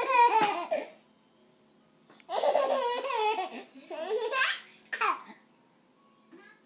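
A baby laughing in high-pitched bouts: a burst at the start, a longer run of laughter a little past two seconds in, and a short one near the end.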